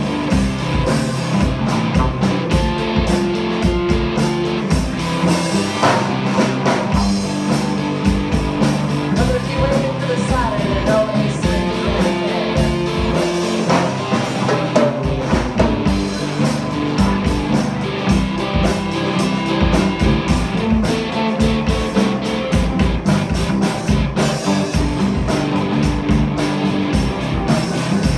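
A rock band playing live: electric guitars over a drum kit keeping a steady beat.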